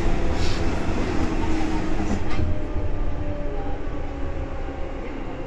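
Seibu 2000 series electric multiple unit running, heard from inside the car: a dense low rumble of wheels and running gear with faint steady tones. A few sharp clicks come in the first half, and the noise grows quieter through the second half.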